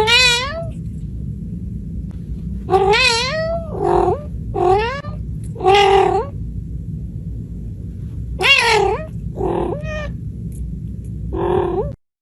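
A cat meowing repeatedly, about nine wavering, drawn-out meows, over a steady low hum.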